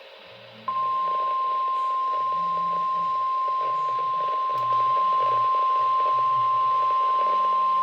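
Weather radio warning alert tone for a tornado warning: one steady, loud, single-pitched beep near 1 kHz, coming in under a second in and held unbroken, over radio hiss. It is the attention signal that announces a warning-level message.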